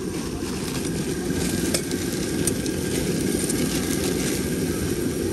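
Gas stove burner roaring steadily under a steel cooking bowl, with a few light clicks of a spoon against the bowl.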